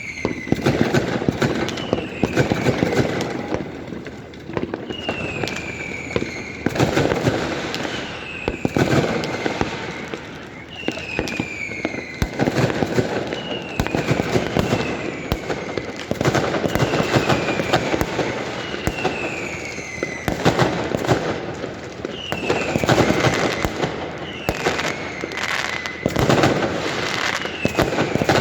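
New Year fireworks going off one after another: whistling shells whose pitch falls as they fly, each followed by a burst of crackling pops, about every two seconds with many bangs overlapping.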